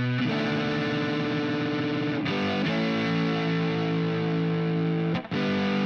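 Electric guitar with distortion playing the song's turnaround in E: held, ringing chords that change about two seconds in, with a short break and a new chord struck about five seconds in.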